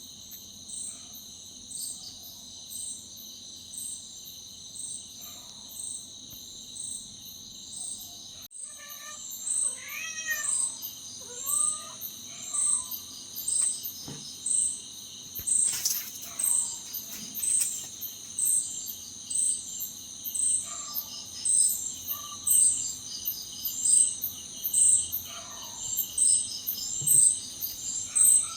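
Insects chirping steadily in a high, even pulse, with a cat meowing a few times, mostly in a cluster about ten seconds in. The chirping jumps louder at an abrupt cut a little past eight seconds.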